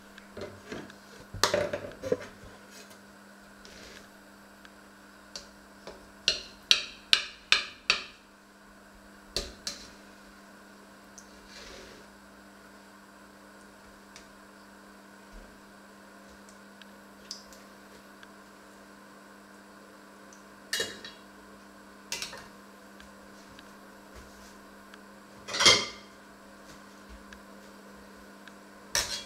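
A knife clinking and scraping against a red enamelled pot as a baked fruit dish is cut and served, in scattered sharp knocks: a quick run of about six clinks a quarter of the way in and a few louder single clinks later, the loudest near the end. A steady low hum runs underneath.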